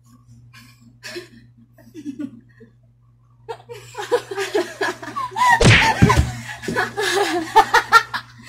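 Young women laughing and giggling. It is quiet at first, then the laughter builds from about halfway in into quick repeated bursts, with a couple of dull thumps near the middle.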